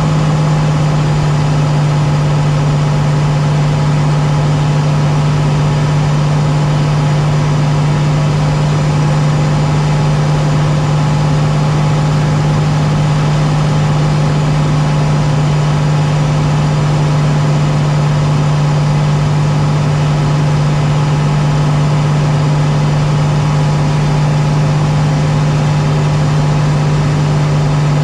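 A small aircraft's engine drones steadily in flight during a descent, with a strong low hum and fainter tones over a constant rush of noise.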